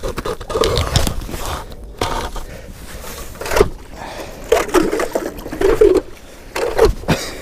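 Hand ice auger being cranked through thick lake ice, its blades scraping and grinding in uneven strokes.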